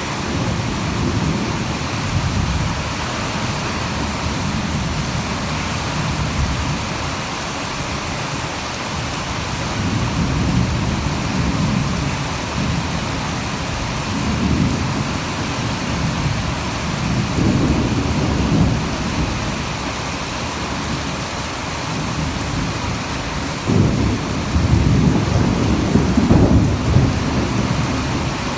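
Heavy rain falling steadily, with low rumbles of thunder swelling and fading several times; the loudest rumble starts suddenly near the end and lasts a few seconds.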